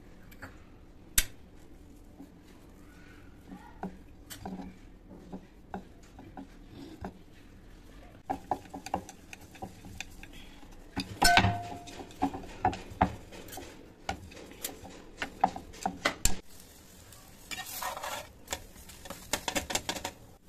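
Scattered kitchen clatter: knocks of a wooden rolling pin and board and clinks of steel utensils, busiest about halfway through, with a short sizzle from the paratha on the hot griddle near the end.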